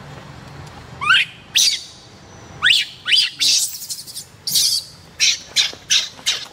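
Baby macaque crying: a few rising squeals, then from about halfway in a run of harsh screams, two or three a second.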